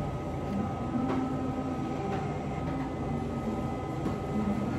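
Steady café room noise: a low, even rumble with a faint constant hum.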